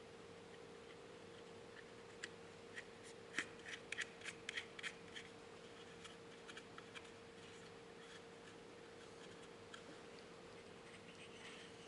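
Quiet clicks and taps of small metal parts and tools being handled while a car horn is put back together: a cluster of about a dozen sharp ticks over three seconds, then a few stray ones, over a faint steady hum.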